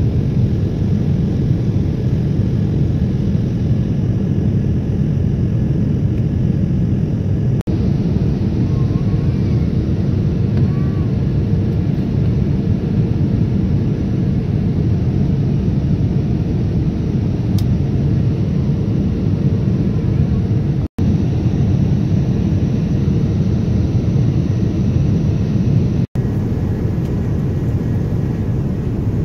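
Steady, loud low rumble of an airliner cabin in flight: jet engine and airflow noise. It cuts out for an instant three times.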